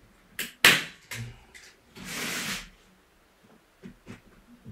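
Hand staple gun firing a 6 mm staple into the wooden stretcher frame with one sharp snap, less than a second in, among a few lighter clicks and a knock. About two seconds in, a brief rustle of the canvas fabric being pulled and handled.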